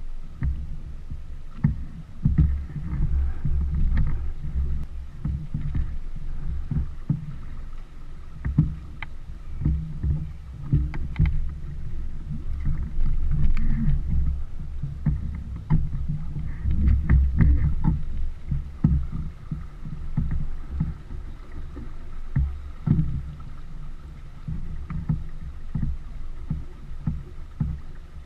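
Small sailboat under sail: an uneven low rumble of wind buffeting the boat-mounted microphone, mixed with water rushing along the hull, with a few faint clicks here and there.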